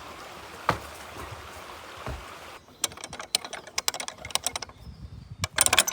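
Water running over rocks as a steady rush, which stops abruptly a little over two seconds in. A rapid, irregular run of sharp clicks and taps follows.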